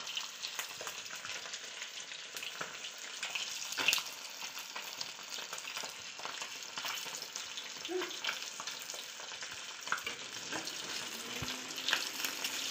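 Fish sizzling and crackling as it shallow-fries in hot oil in a kadhai, with a metal spatula clicking and scraping against the pan a few times as the fish is turned.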